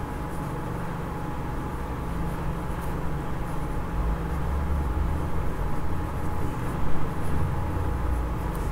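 Steady low background rumble with a faint constant whine throughout, and faint scratches of a fine-nib fountain pen writing on paper.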